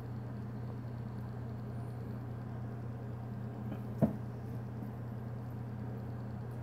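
A black-and-white tegu feeding, with one sharp knock about four seconds in as it lunges its head into a plastic food tray, over a steady low hum.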